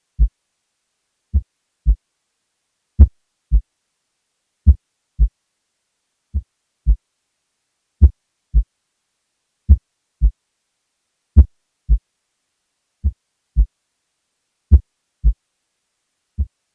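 Recorded heart sounds from a patient in complete heart block: a slow, regular beat of paired thumps (S1 then S2) about 36 times a minute. The first sound of each pair varies in loudness from beat to beat while the second stays steady, the variable S1 caused by AV dissociation.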